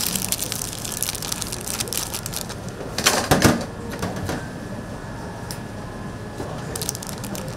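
Sandwich wrapping paper crinkling and rustling as it is folded and pressed around a sandwich, with a louder burst of crinkling about three seconds in, then only light rustling.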